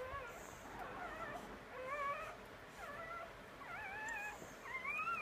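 Dog whimpering during whelping: a run of short, high, wavering cries, about one a second, some rising at the end.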